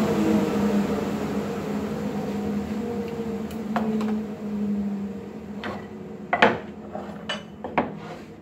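Hum of woodworking machinery fading away as it runs down, followed by a series of sharp knocks and clicks of small wooden pieces being handled on the machine table, the loudest about six and a half seconds in.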